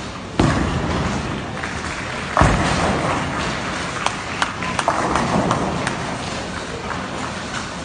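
A bowling ball thuds onto the lane, then about two seconds later crashes into the pins, followed by scattered pin clatter over the steady din of a bowling alley.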